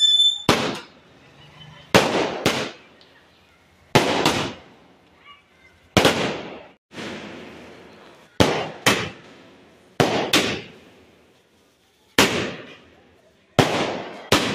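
Aerial fireworks bursting overhead: sharp bangs about every two seconds, several of them coming in quick pairs, each trailing off in an echo.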